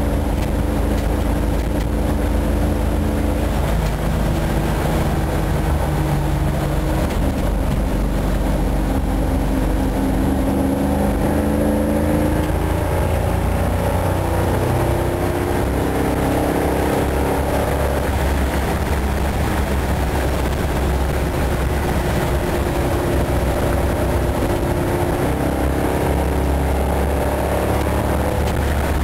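1981 Dodge B300 van's custom 360 cubic-inch V8, on headers, running steadily while the van cruises, heard inside the cab with a heavy low rumble and road noise. The engine note drifts up and down in pitch.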